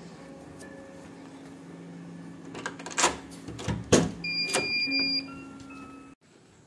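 A door being unlatched and opened: sharp clicks and knocks of the handle and lock, three and four seconds in, over a steady low hum. A high tone lasts about a second near the middle.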